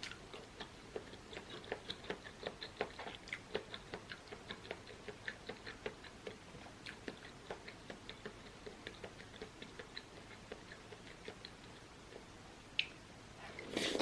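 Close-up chewing of a cheese-filled cod fish ball: a run of soft, wet mouth clicks, a few a second. The clicks thin out near the end, with one sharper click and a brief louder noise at the very end.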